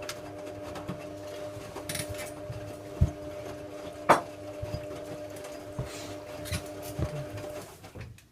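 Hoover Logic A3790 washing machine mid-wash: the drum motor hums steadily while the load knocks as the drum turns. There are two sharp thumps about three and four seconds in, then the motor stops shortly before the end as the drum pauses.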